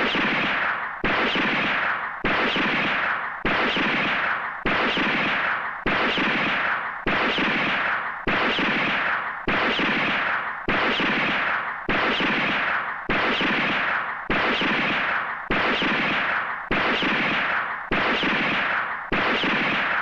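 Police-drama pistol gunshot sound effect, fired over and over at about one shot a second, some seventeen times. Each shot is a sharp crack followed by a long echoing tail that dies away just before the next.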